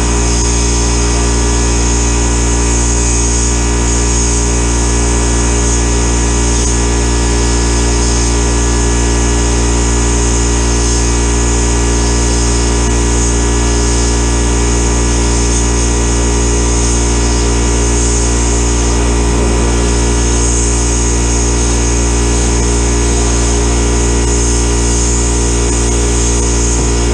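Sandblast cabinet gun blasting a small metal bracket: a loud, steady hiss of compressed air and abrasive media etching the surface before coating, over the steady hum of an air compressor running.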